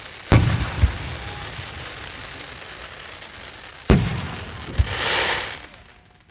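Aerial firework shells bursting: two sharp booms about half a second apart with a long rumbling tail, then two more booms about four seconds in, followed by a brief hiss.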